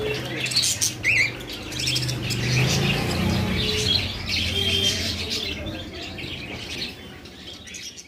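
A flock of caged budgerigars chirping and chattering in many short overlapping calls over a low steady hum, fading away near the end.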